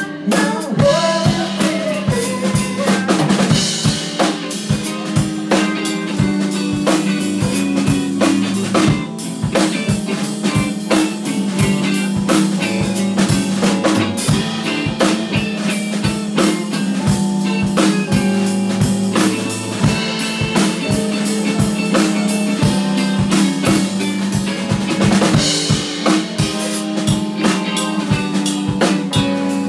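A live band playing: a drum kit keeps a steady beat under a Korg Krome keyboard and a guitar.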